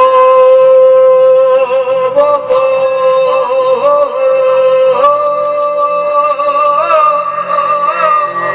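Live band music: one long held high melody note with small ornamental bends, stepping up to a higher note about five seconds in, over a steady lower backing.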